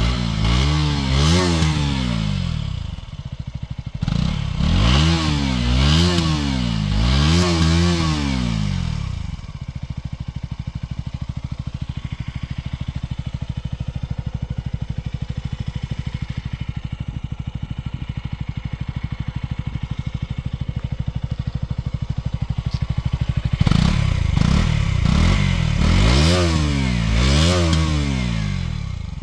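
KTM Duke motorcycle exhaust: the engine is blipped through a run of quick revs that rise and fall, then settles into a steady, evenly pulsing idle. Near the end it is revved repeatedly again.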